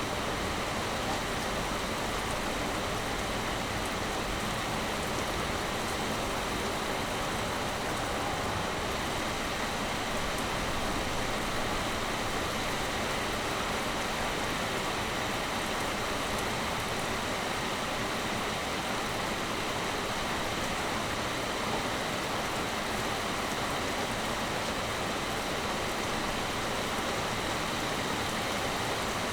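Heavy rain pouring steadily, an even, unbroken hiss with no let-up.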